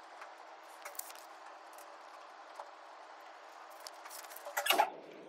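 Faint steady hiss with a few light clicks from loose-leaf paper notes being handled, then a short burst of rustling and handling noise near the end.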